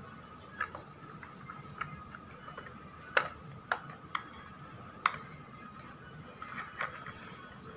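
Light, sharp clicks and taps of hard PVC parts as fingers handle the pieces inside a handmade miniature Mitsubishi Canter truck cab. There are about eight separate clicks, the loudest a little after three seconds in. A faint steady high tone runs underneath.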